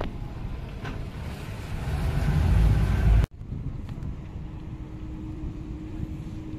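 Wind buffeting the microphone over the low rumble of a boat's motor on open water, growing louder until it cuts off suddenly about three seconds in. It is followed by quieter open-air ambience with a faint steady hum.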